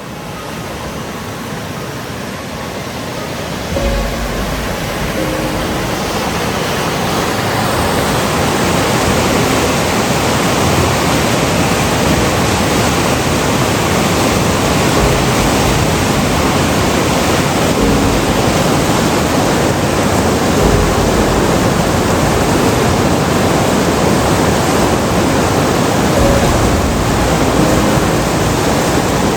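Class 3–4 whitewater rapids rushing, a dense steady noise that grows louder over the first eight seconds or so and then holds.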